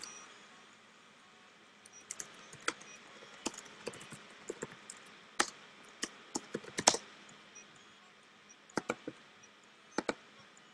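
Typing on a computer keyboard, a terminal command and password being entered: a few seconds of irregular keystroke clicks, then a few more keystrokes near the end.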